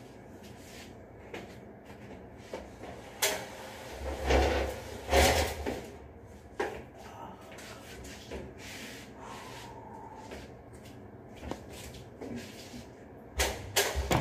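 Knocks, clicks and rubbing from handling the metal ceiling light fixture and panels of an elevator during an LED tube replacement: scattered sharp knocks, the loudest about four to five seconds in, and a quick pair near the end.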